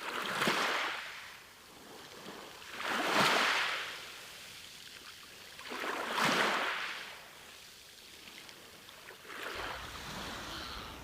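Sea waves washing onto a beach: three surges of surf about three seconds apart, each swelling and fading. Near the end the wash turns steadier, with a low rumble underneath.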